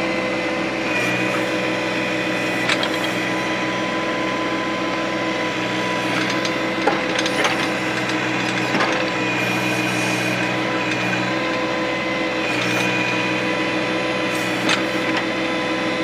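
John Deere 1025R tractor's three-cylinder diesel running steadily at about 2,500 rpm, working the 260B backhoe's hydraulics, with a steady whining hum. A few sharp clicks and knocks come as the bucket works through rocky dirt.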